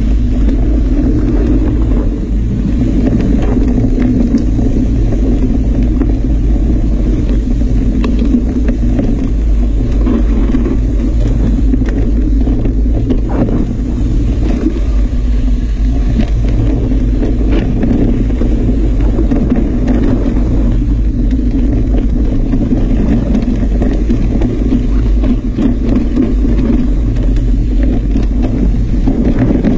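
Loud, steady rumble of wind buffeting the microphone of a camera moving along a trail, with scattered clicks and rattles.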